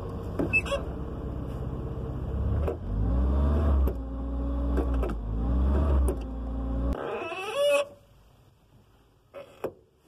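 Small clicks from a manual car's clutch pedal as it is pressed and released, over a steady low engine hum that stops suddenly about seven seconds in. The click is put down to a worn clutch pedal pivot pin or a badly adjusted pedal; it is annoying rather than dangerous.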